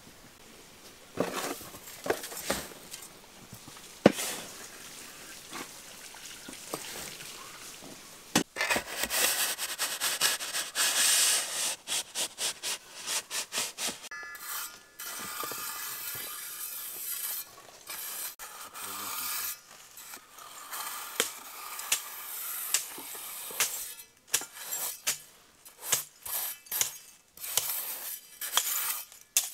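Steel mason's trowel tapping and scraping on bricks and mortar. About eight seconds in it gives way to a long hiss of dry, white granular fill being worked, then many quick rasping strokes as the trowel spreads and levels the fill.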